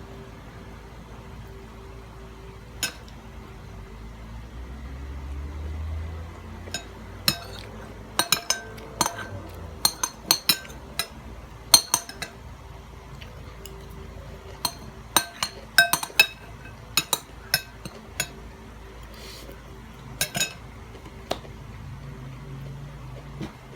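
Eating utensil clinking and tapping against a dish of fried rice: many short, ringing clinks at an irregular pace, thickest in the middle, over a faint steady hum.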